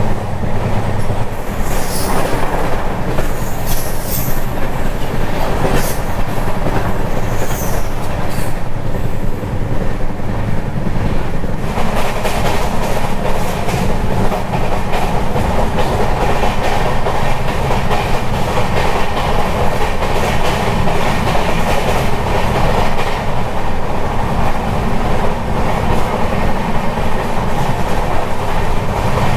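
Express train running at speed, heard from an open coach doorway: a steady rumble of wheels on the rails with clickety-clack from the rail joints. A few brief high squeals come in the first several seconds.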